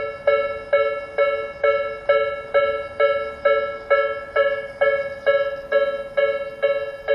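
Japanese railway level-crossing alarm of the Tobu 'Nikko type', an electronic bell tone struck about twice a second in an even, unbroken rhythm, each ding ringing and fading before the next. The crossing's alarm units sound nearly in step.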